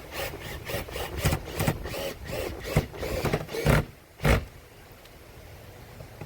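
Hammer driving a nail: quick taps about three a second, ending in two heavier blows about four seconds in.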